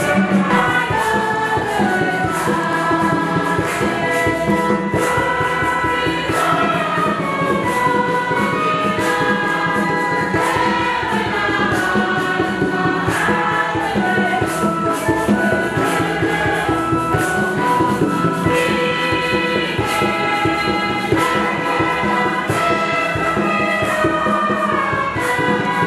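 Choir singing a gospel hymn over a steady percussion beat.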